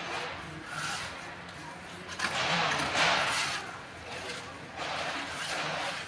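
Steel trowel scraping and spreading cement plaster across a wall: a brief scrape about a second in, then two longer sweeps, the first of them loudest.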